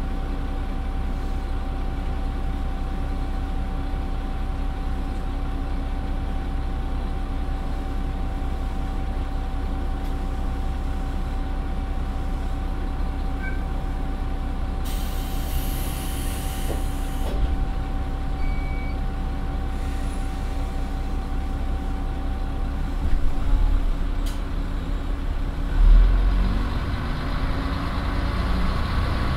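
Nissan Diesel PF6HT03 six-cylinder diesel engine of a NaGaRa 3 railcar idling while stopped, heard from inside the passenger cabin, with a steady low rumble. About halfway through there is a couple of seconds of compressed-air hiss. Near the end come a low thump or two as the drive engages, and the engine revs up as the railcar starts to pull away in first torque-converter stage.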